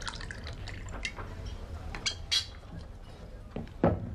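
Whiskey poured from a glass bottle into a shot glass, a quick trickle of small drips over the first second or so. Then come two sharp glassy clinks and, near the end, a louder knock on the wooden bar.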